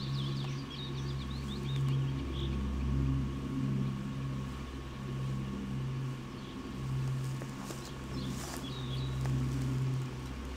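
Small birds chirping briefly in the first second or so and again near the end, over a steady low hum that carries most of the sound and a faint high whine.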